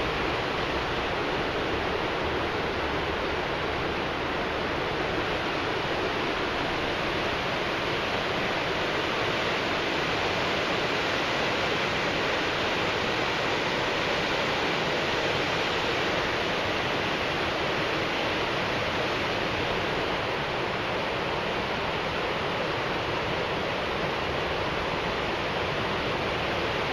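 River swollen in flood after a typhoon, its fast muddy current rushing steadily.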